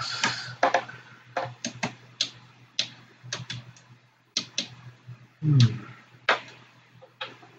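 Irregular sharp clicks of patch cables being plugged into and pulled from the jacks of a Eurorack modular synthesizer, with one louder thud about five and a half seconds in, over a low steady hum.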